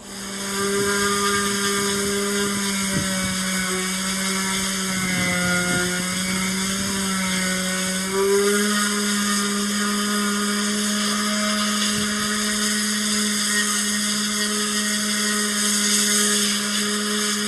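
Electric power sander starting up and running steadily with a high whine. Its pitch sags for a few seconds mid-way as it is pressed into the work, then steadies again.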